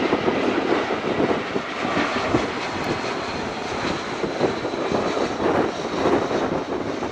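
Jet airliner engines running, a steady rushing noise with a faint high whine in the middle.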